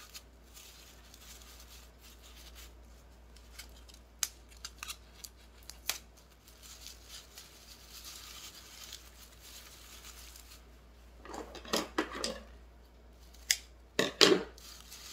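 Handling sounds from unwrapping a small potted orchid: scattered light clicks and rustling of its white paper wrapping, then twice near the end louder clusters of crisp snips from a pair of scissors.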